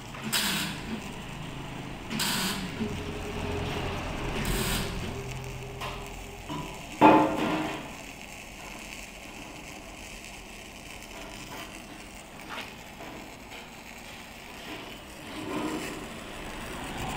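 Automatic straight seam welding machine at work, its welding carriage running along the beam with mechanical rattling. There are three short hisses in the first five seconds and a loud knock about seven seconds in, then a quieter steady running noise.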